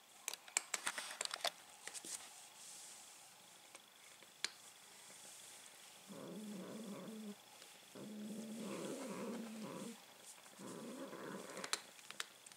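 Cats eating from a steel bowl: a quick flurry of sharp clicks and taps in the first second and a half, then a cat's low rumbling at the bowl in three bouts of one to two seconds each.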